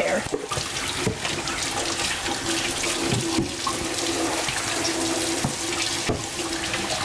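Kitchen tap running into the sink while hands are washed under it, with a steady low hum through most of it and a few light knocks.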